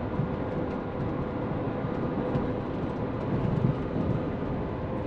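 Hino semi-trailer truck's diesel engine and tyre noise heard from inside the cab, a steady drone while cruising on the expressway.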